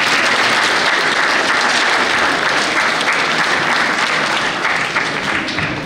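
Audience applauding: a crowd of many people clapping steadily, easing off slightly near the end.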